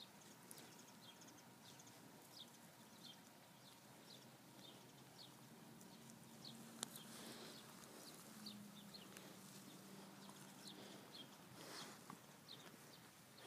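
Near silence, with faint, short high chirps from a small bird repeating about every half second or so.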